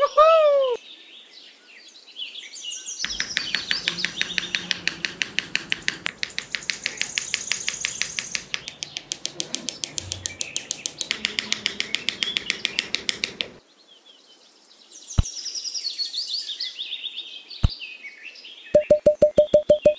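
Small birds chirping and tweeting, with a long, rapid run of even clicks, about seven a second, over most of it. Near the end come two single clicks, then a fast string of short beeps.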